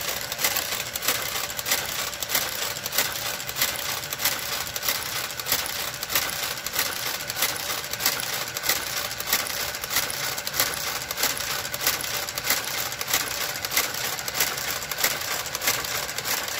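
Motorised garter carriage of a Brother electronic knitting machine working its way along the needle bed, giving a steady run of rapid clicks over a faint motor hum.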